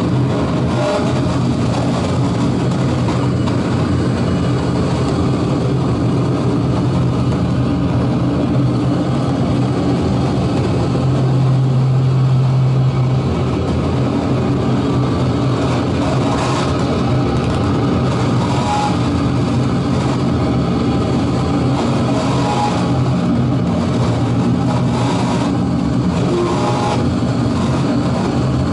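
Dark ambient noise drone from a modular synthesizer: a dense, steady low hum with a rough, grainy texture on top. The low tone swells a little louder about halfway through.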